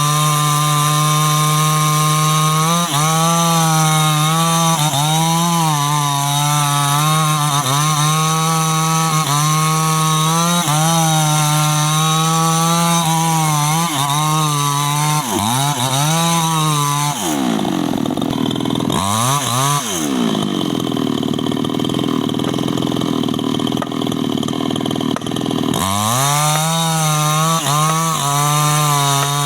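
New West 628 two-stroke chainsaw with a 26-inch bar, running at full throttle through durian wood. Its pitch dips and recovers again and again as the chain bogs under load. About 17 seconds in it drops back to idle, blips once, then revs up again near the end.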